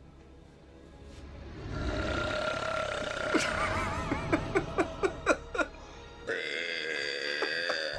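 A run of short, loud burps, dubbed in for the film's voices, over steady background music.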